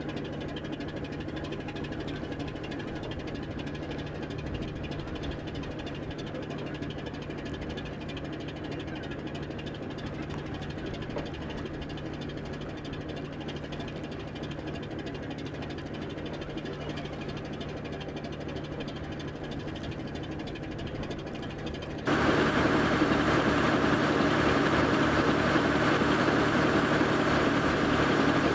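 Boat engine running steadily with a constant low hum. About three-quarters of the way through it suddenly becomes louder and noisier.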